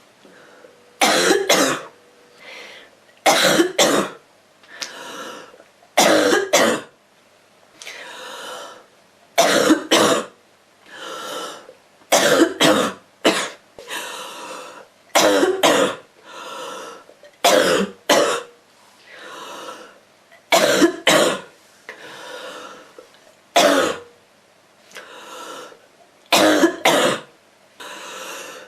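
A girl coughing over and over: short, sharp coughs, mostly in quick pairs or threes, coming every two to three seconds, with softer, longer sounds between the bursts.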